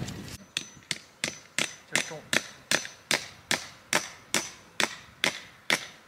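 A hand hammer driving fence staples into a wooden fence post: a steady run of sharp blows, about three a second.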